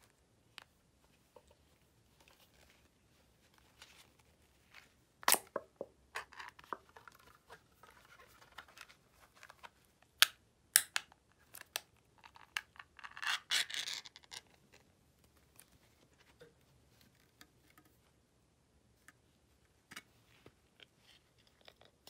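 Small pull-tab cat-food can being handled and opened: several sharp metallic clicks, then a rasping scrape about 13 seconds in as the lid tears away. Faint scratches and rustles of a knit glove come between.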